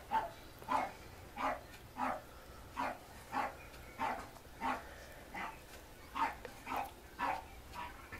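A dog barking in a steady, unbroken series of short barks, a little under two a second.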